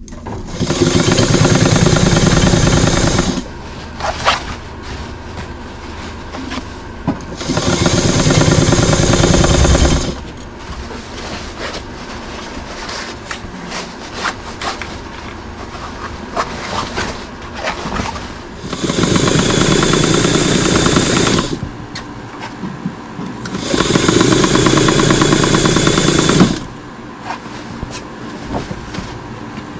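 Electric sewing machine with an external motor, a 1969 model, running in four bursts of about two to three seconds each as it stitches canvas. Between the runs come quieter clicks and rustling as the fabric is moved.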